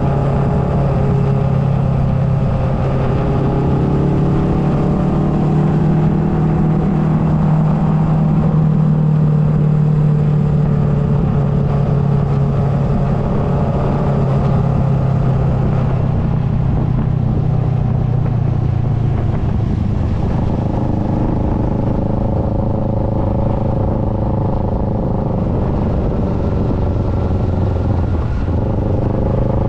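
Kawasaki Versys 650 parallel-twin engine running at road speed, its pitch rising and falling several times as the throttle is worked through the bends, with wind rumble on the microphone.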